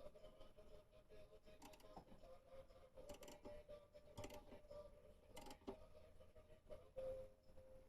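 Faint, irregular clicks and creaks of a wrench turning the alternator belt's adjusting bolt, taking up belt tension, over a low steady hum.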